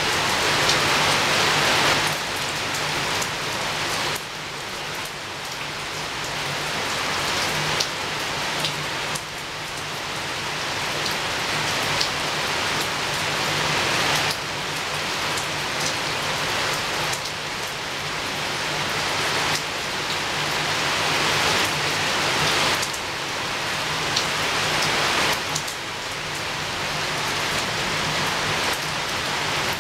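Rain falling on a window, a steady hiss that swells and eases every few seconds, with occasional sharp ticks of single drops.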